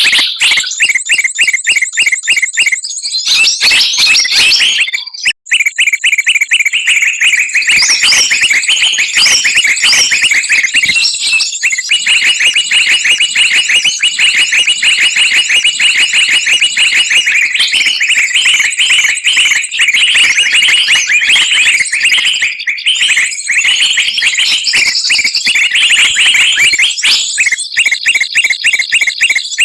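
Busy, noisy chorus of small songbirds chirping rapidly and continuously, many shrill notes overlapping, with a brief break about five seconds in. It is a bird-trapping lure call, meant to draw birds down.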